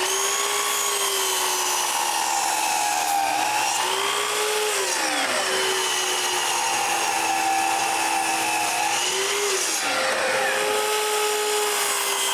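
Power saw cutting walnut along a pattern line, its motor whining steadily; the pitch drops as the blade is loaded, about five seconds in and again near ten seconds, then recovers.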